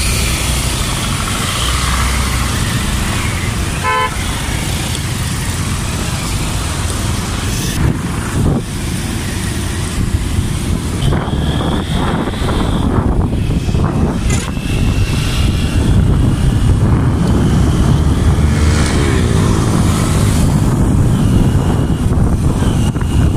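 Motorcycle ride on a rough mountain road: the bike's engine running under a steady rush of wind and road noise, with a short horn beep about four seconds in and a few more horn beeps later.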